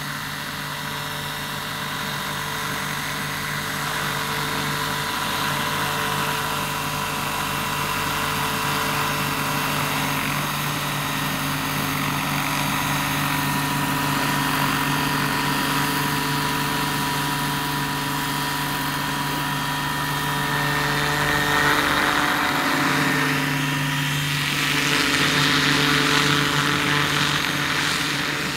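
RC scale model helicopter, an AS350 B3 Ecureuil, flying and hovering with a steady whine from its rotors and motor. The pitch shifts about two-thirds of the way through, and the sound grows a little louder near the end as the model comes low and close.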